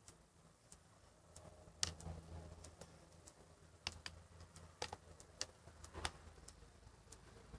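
Faint, scattered clicks and light taps, irregularly spaced, from slime being worked around in a container of water, with the loudest tap about two seconds in and several more a couple of seconds later.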